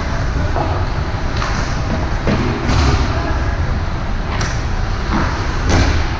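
Sports game noise: a steady low rumble with about six sharp knocks of play spread through it.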